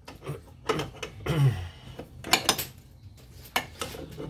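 Irregular metallic clinks and taps of a wrench and metal fittings as the fuel-line bolt on the fuel filter is tightened.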